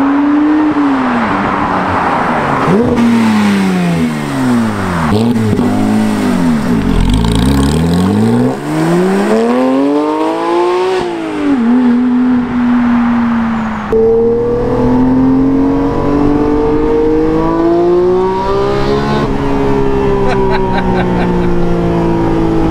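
Porsche 911 GT3's flat-six, breathing through a BRE exhaust, accelerating hard towards and past the camera, its pitch climbing and then sweeping down as it goes by. After a sudden cut, heard from inside the cabin, it revs up through a gear, drops in pitch at a gearchange about 19 s in, and climbs again.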